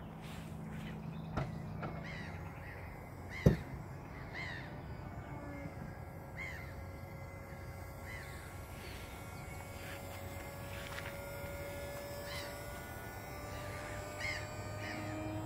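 Renault Mégane CC's folding hardtop working through its cycle: the roof's electro-hydraulic pump whines steadily, rising slowly in pitch as the boot lid and roof move. There is one sharp clunk about three and a half seconds in.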